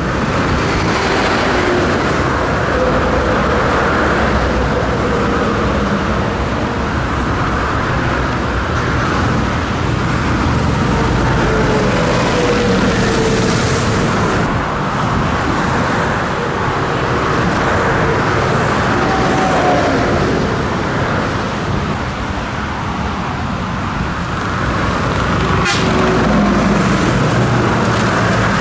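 Scania truck on the move: steady engine and road noise, with a short click near the end.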